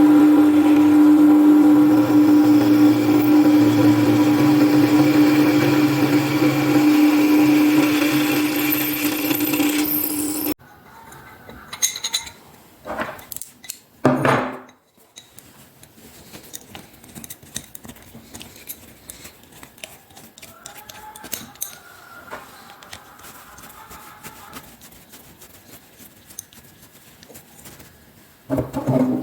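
Electric power tool motor running steadily with a strong, even hum, cutting off abruptly about ten seconds in. After that it is mostly quiet, with a few scattered knocks and clicks of handling.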